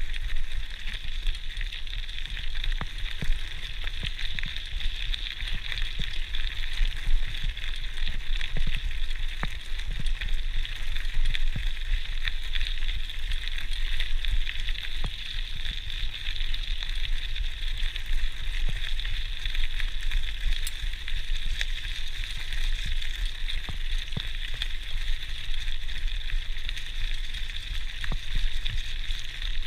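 GT Outpost Trail mountain bike rolling over a gravel forest track: a steady crackling crunch of tyres on loose stones, with scattered small clicks and rattles from the bike and a constant low rumble.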